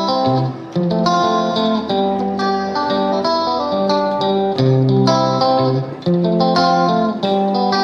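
Background music: a melody of plucked guitar notes, with brief breaks between phrases about half a second and six seconds in.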